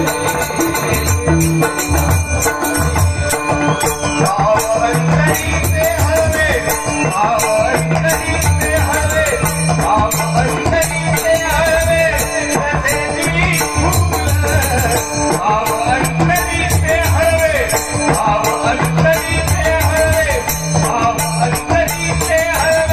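Live devotional bhajan music: deep pakhawaj drum strokes and tabla under steadily jingling jhanj hand cymbals, with a wavering sung melody.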